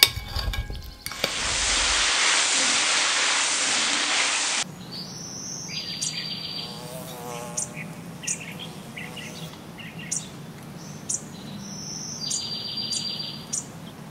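Outdoor ambience of birds chirping and insects trilling. It follows a few seconds of loud, even hiss that cuts off abruptly about four and a half seconds in.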